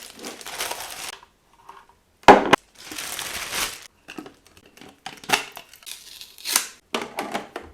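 Packaging being unpacked: plastic or paper crinkling and tearing, with a sharp knock about two seconds in and scattered lighter clicks and knocks.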